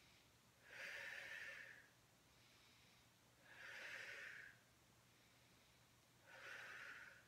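A woman's faint breathing: three audible breaths roughly three seconds apart, paced with slow hip lifts in a Pilates bridge.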